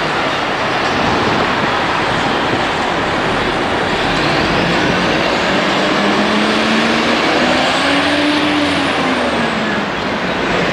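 Loud, steady city traffic noise as a motorcoach pulls through an intersection, its engine note rising and then falling in the second half.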